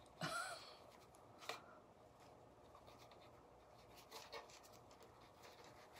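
Near silence with faint handling noise: a gingham fabric ribbon being worked into a bow, giving a soft rustle and a few light ticks, about 1.5 s and 4 s in. A brief murmured hum just at the start.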